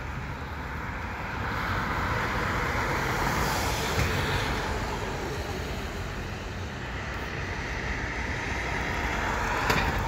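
Road traffic on a city street: a steady rush of car tyres and engines that swells as vehicles pass, about two to four seconds in and again near the end.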